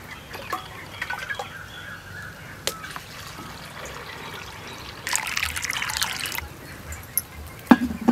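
A few light clinks, then water poured from a small metal vessel into a clay pot of soaked chana dal, splashing loudly for over a second. A sharp knock comes near the end.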